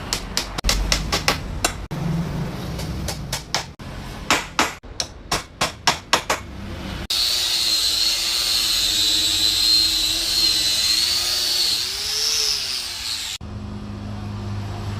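Hammer striking wood in a quick, uneven run of sharp blows during chair-frame assembly, then an electric drill running with a steady high whine for several seconds, its pitch dipping and rising briefly near the end.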